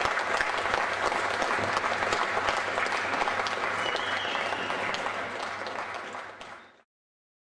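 Audience applauding steadily, the clapping fading out near the end as the recording ends.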